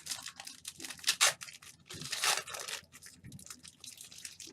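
Wrapper of a 2016 Certified football card pack being torn open and crinkled by hand, with two louder rips about a second and two seconds in.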